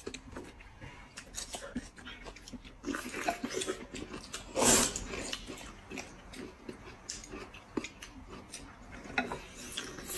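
Close-up eating sounds: noodles slurped and food chewed with small wet clicks and crackles, and one louder slurp about halfway through.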